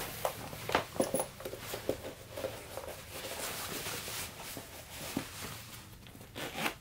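Rustling and scattered soft knocks of a leather sneaker being pulled on and handled, with a few light taps and shuffles; the sharpest knocks come about a second in and near the end.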